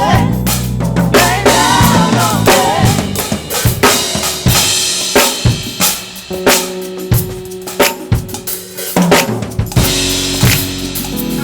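Live drum kit played in a gospel church band: snare, bass drum and cymbal hits with fills over held bass and organ notes. A voice sings over the drums in the first few seconds.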